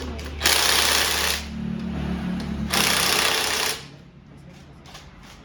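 Power tool running in two bursts of about a second each, tightening bolts.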